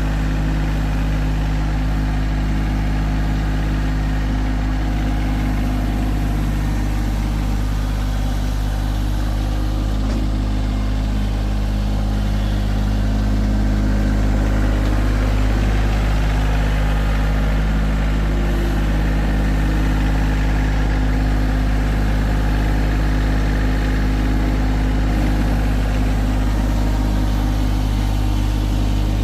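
Tractor engine running steadily, a low, even drone while it moves and levels gravel.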